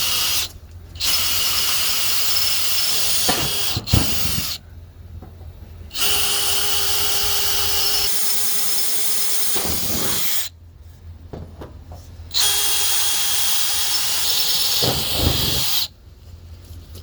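Electric drill with a larger bit boring out holes through a steel wall. It runs in several bursts of about four seconds with short pauses between them.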